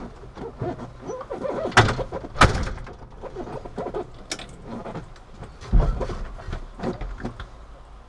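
A few sharp knocks and clunks inside a truck cab, the loudest two close together about two seconds in and another near six seconds, from the shift levers and dashboard controls being handled.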